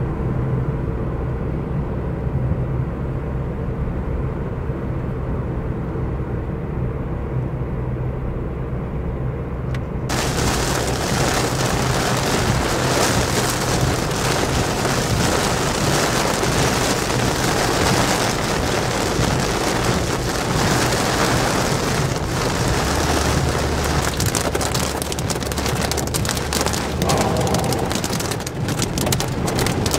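Car interior: a steady low engine and road hum for about ten seconds, then an abrupt change to heavy rain drumming on the car's roof and windshield. Sharp ticks of striking drops crowd together near the end.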